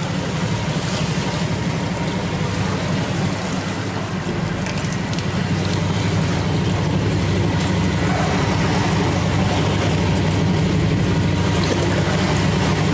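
Boat engine running steadily, a constant low hum, over a hiss of wind and water.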